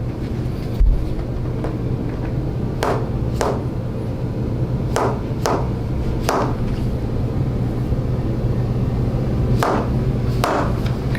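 Bone-setting hammer (orthomanual therapy technique) tapping on the body in sharp, separate knocks: seven strikes, mostly in twos, with a single low thud about a second in. A steady low hum lies underneath.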